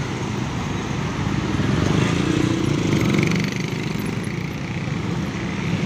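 Congested road traffic moving slowly past close by: a large intercity bus's engine and motorcycle engines running together. The noise swells from about two seconds in.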